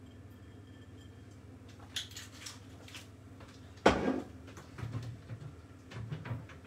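Kitchen handling sounds: light clicks and rustles, then one sharp knock about four seconds in as the glass olive oil bottle is set down on the worktop, followed by a few soft knocks and rustles.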